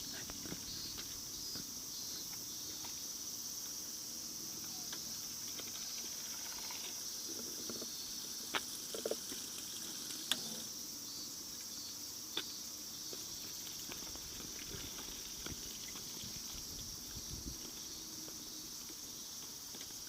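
Steady, high-pitched drone of an outdoor insect chorus, with a few sharp clicks or knocks scattered through the middle.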